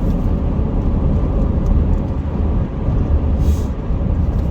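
Steady low rumble of road and engine noise inside a moving car's cabin, with a brief hiss about three and a half seconds in.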